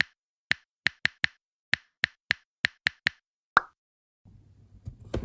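A quick, uneven run of about a dozen sharp clicks or taps on a dead-silent background, ending about three and a half seconds in. Soft music begins shortly after, with a thump near the end.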